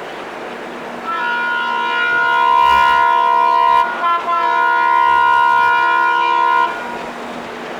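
Air horn of an Indian Railways WDM3A diesel locomotive, a steady chord of several notes blown for about six seconds from about a second in, with a brief break about three seconds in. A steady rushing hiss sits under it and is left alone near the end.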